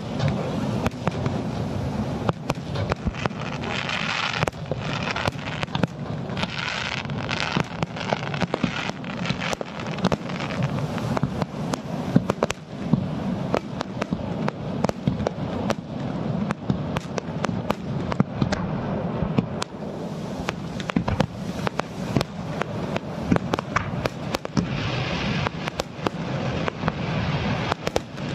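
Fireworks shells bursting on the sea surface (kaijō jibaku) in a dense, continuous volley of sharp bangs over a steady low rumble, with spells of crackling about four seconds in, around six to seven seconds, and near the end.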